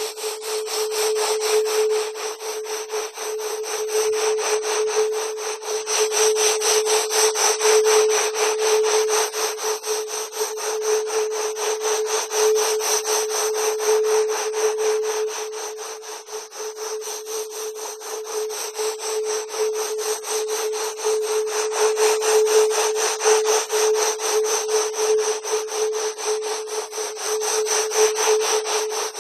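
Electronically generated wave-genetics audio track meant for strengthening the immune system. A steady mid-pitched tone is held under a dense, rapid, raspy pulsing noise, which swells and eases in loudness but never stops.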